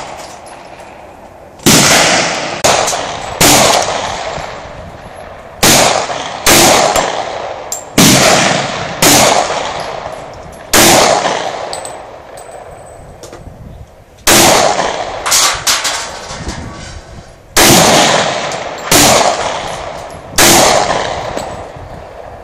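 Semi-automatic .40 caliber pistol shots from reloaded ammunition: a dozen or so loud reports at uneven intervals, often about a second apart, each trailing off in a ringing echo.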